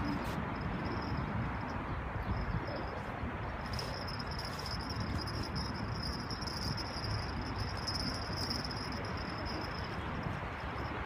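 Insects trilling steadily at a high pitch over a low, even background rumble.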